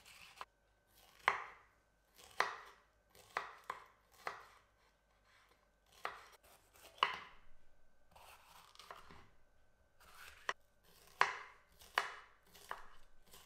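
Chef's knife slicing bell peppers into strips on a wooden cutting board: about fifteen separate strokes, each a crisp cut ending in a knock of the blade on the board, in an uneven rhythm.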